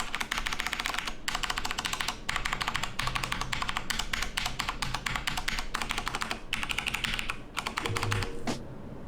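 Fast typing on a mechanical keyboard: keys clacking many times a second in runs, with short pauses between them.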